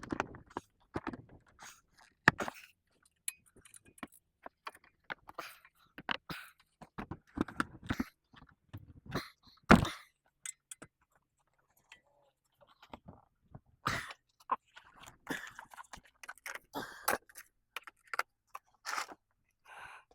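Hand tools and brake parts being handled during a front brake job: irregular metallic clinks, knocks and scrapes with short pauses between them, one sharper knock about halfway through.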